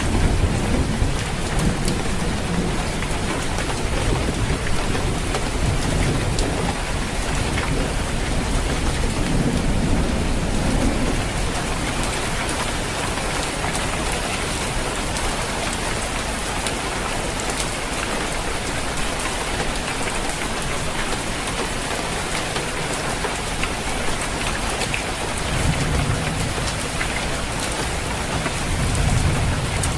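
Steady heavy rain pattering on a roof, a dense even hiss. Low rumbles of thunder swell in at the start, around a third of the way in, and twice near the end.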